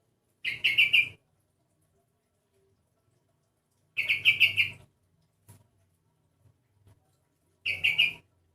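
Sooty-headed bulbul (kutilang) calling three times, each call a quick run of about four or five short notes lasting just over half a second. It is a voice the owner finds unlike a usual kutilang's.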